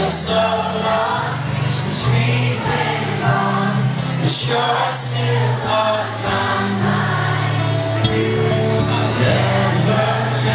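Live pop song: male vocals sung into a handheld microphone over acoustic guitar, heard through the venue's PA from the audience.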